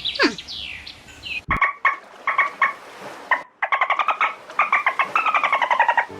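A bird calling in fast series of short, repeated chirps, after a brief falling call at the start.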